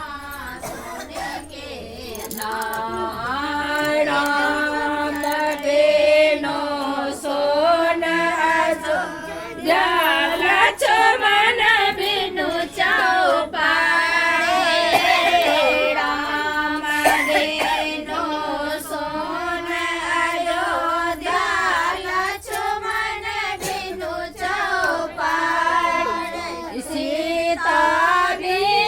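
Several voices singing a devotional song together in long, wavering held notes, growing louder a few seconds in.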